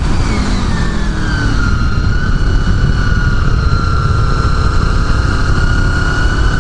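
1999 Honda VFR800's V4 engine running at speed on a track. Its pitch falls over the first second or so, then holds steady and rises slightly near the end, under heavy wind rush on the microphone.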